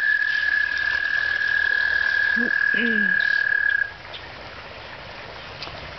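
A male American toad's long, steady, high trill, its breeding call, which cuts off abruptly about four seconds in.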